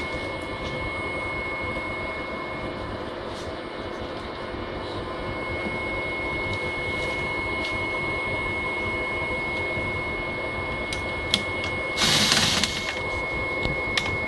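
Opened photocopier running with a steady mechanical hum and a constant high tone from its motors and fans. A few clicks come near the end, and a short, loud rushing burst about twelve seconds in.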